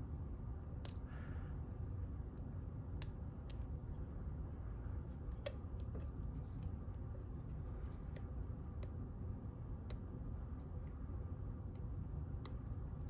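Small, irregular metallic clicks and ticks as a lock pick and tension tool work the pins of a Mul-T-Lock Classic serrated padlock core, over a steady low hum.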